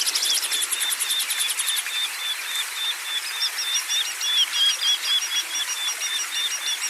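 Songbirds calling: a steady run of short, clipped chirps about three a second, over a fast high trill that stops about two seconds in, with a second, higher-pitched chirping joining about three seconds in.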